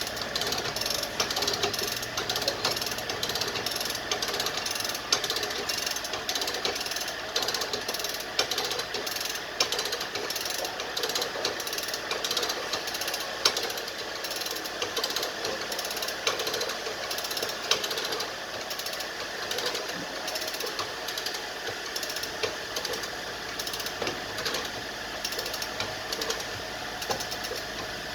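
Rapid, repeated hammer blows on car body sheet metal, several strikes a second, as a panel beater works out accident dents.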